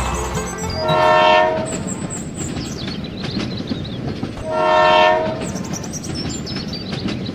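Battery-powered toy train running on a plastic track with a steady rattling clatter. Two short train-horn blasts sound about four seconds apart, one about a second in and one near five seconds.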